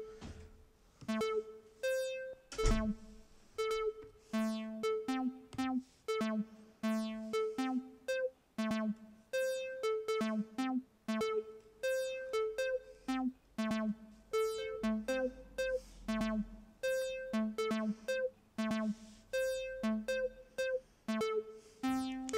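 Synthstrom Deluge synth track playing a sequenced loop of short synth notes, roughly two a second, moving between a few pitches. The notes are set to play with varying probability and the arpeggiator is on, so the pattern keeps changing. A single thump about three seconds in.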